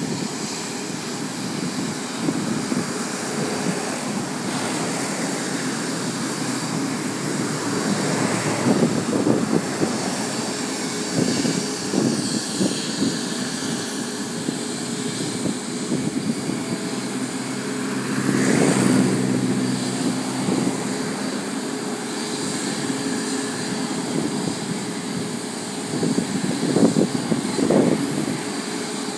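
Jet airliner engines running at idle on the apron: a steady rush and hum, swelling louder a few times.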